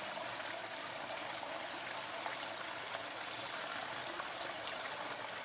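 Steady, even hiss of running water, with no distinct splashes.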